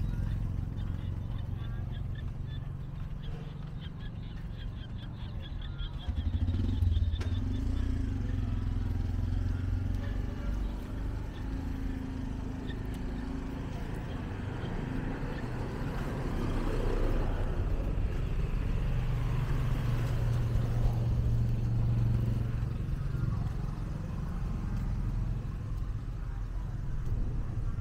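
Motorbike and small van engines running as they pass along the lane, louder about six seconds in and again in the second half.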